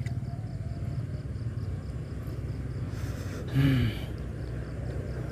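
Steady low rumble with faint, fast ticking for the first few seconds, and a man's short, breathy grunt about three and a half seconds in.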